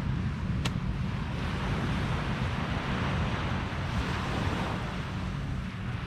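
Small waves breaking on a sandy beach, a steady wash of surf, with wind buffeting the microphone as a low rumble.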